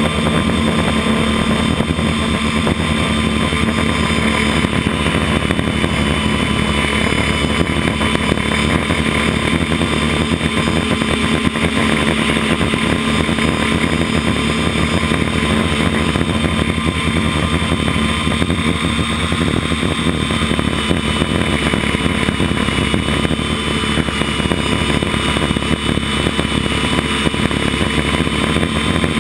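Electric motors and propellers of an FPV model aircraft, heard from its onboard camera, running steadily at flight speed with a whine of propeller hum.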